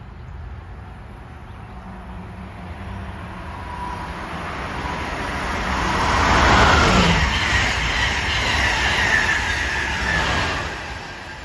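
Amtrak Acela Express electric high-speed trainset passing through at speed: the rush of the train builds, peaks about six seconds in, holds, then drops away near the end.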